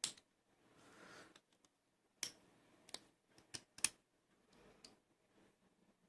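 Scattered sharp metal clicks and light scrapes, about half a dozen, of a clip removal tool working at the retaining clip on the back of a lock cylinder, the clip stubborn and not yet coming off.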